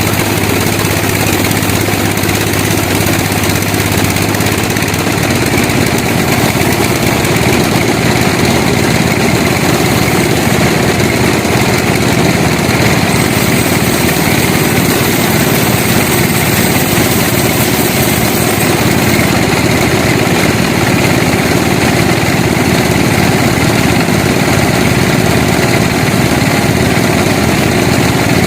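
Sawmill machinery running loud and steady, an engine-like drone with a rattling vibration; a low hum drops out about five seconds in.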